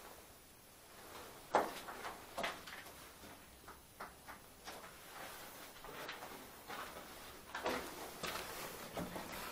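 Irregular footsteps scuffing and crunching on a gritty, debris-covered concrete floor inside a small concrete bunker room.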